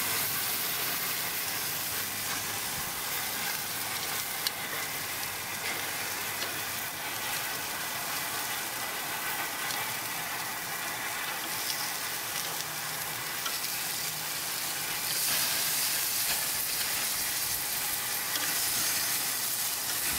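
Oil-marinated zucchini slices sizzling on the grates of a gas grill as they are turned over with metal tongs, with an occasional light click of the tongs on the grate.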